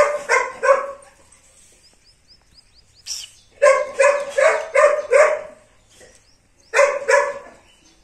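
Pitbull puppies barking in short, high-pitched yaps that come in three bursts: three at the start, a run of about five in the middle, and two near the end.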